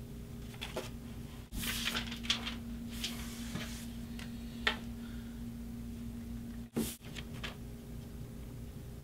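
Quiet scratching and rustling of a pen on a paper notepad and of the sheet being handled on a desk, with a few short sharp sounds, over a steady low room hum.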